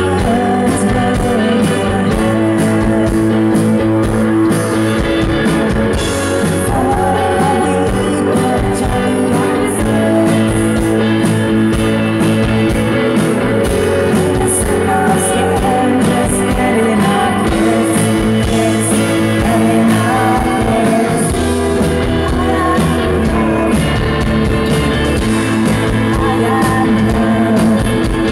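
A rock band playing live: electric guitar, keyboards and drums with regular cymbal strikes under a woman's singing voice.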